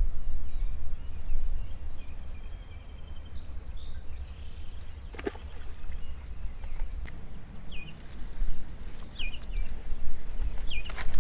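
Three short bird chirps in the second half, over a steady low rumble. A single sharp click about five seconds in.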